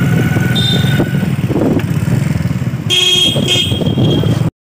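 Motor vehicle engine running steadily while driving, with wind noise, and two short horn toots about three seconds in; the sound cuts off suddenly near the end.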